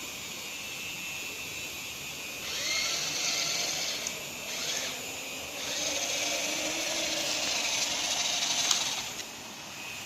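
Small electric motors of a remote-control toy truck excavator whirring in three runs, with a high-pitched whine that shifts in pitch, stopping about a second before the end.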